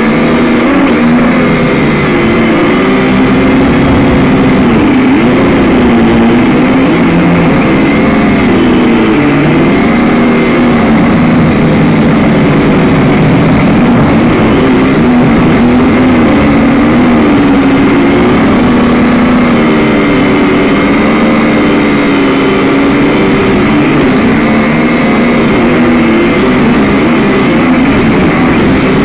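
Small drone's electric motors and propellers whining loudly and continuously, heard close up from its own onboard camera, the pitch rising and falling over and over as the rotor speeds change in flight.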